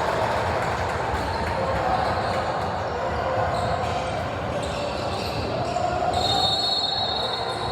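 Sound of a basketball game in a gym: a basketball dribbling on the court amid a steady mix of players' and spectators' voices.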